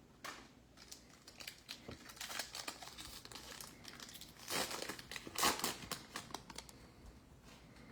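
Trading-card pack wrapper being torn open and crinkled by hand, a run of irregular crackles with the loudest about halfway through.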